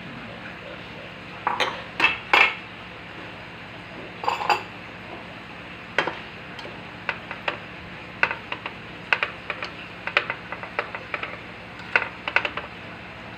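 A ceramic bowl knocking against a stainless steel pot as pineapple chunks are tipped in, loudest about two seconds in, then a plastic turner clinking and scraping against the pot in many light taps while the contents are stirred, over a steady low hum.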